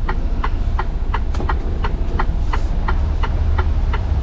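Turn-signal indicator ticking steadily inside a Mercedes-Benz Actros truck cab, about three clicks a second, over the low rumble of the truck's diesel engine.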